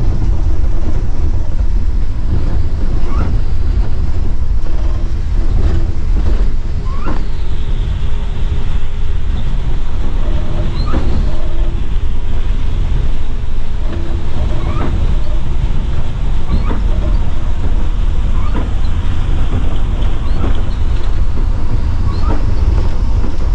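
Steady, loud low rumble inside the cab of a Scania multi-axle coach at speed, with the hiss of tyres on a rain-soaked road and wind noise on the microphone.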